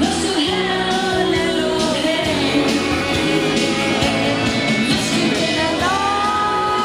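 Country dance music with a singer, played loud over the dance floor. Near the end the voice slides up onto a long held note.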